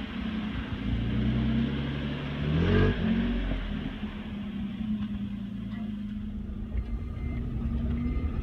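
Toyota Tacoma pickup truck driving past on a dirt track, its engine revving up with a quick rise in pitch about three seconds in as it accelerates away, then settling to a steadier, quieter run.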